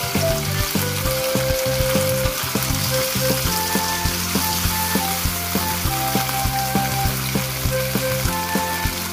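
Shrimp frying in a sizzling sauce in a steel wok, with the clicks of chopsticks turning them against the pan. Soft background music with held notes plays underneath.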